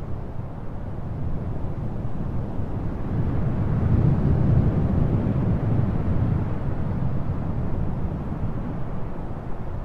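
Low, steady rumble of distant traffic, swelling for a couple of seconds about four seconds in.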